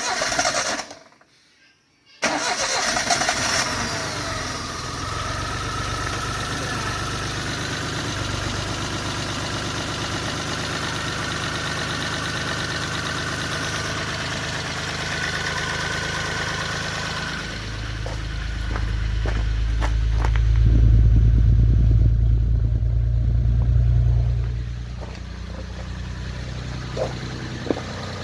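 1991 Chevy Sprint's three-cylinder engine running after a rebuild for low compression (new rings, honed cylinders, new valve seals), coming in suddenly about two seconds in. It runs steadily, grows louder and deeper for several seconds about two-thirds of the way through, then settles back to idle.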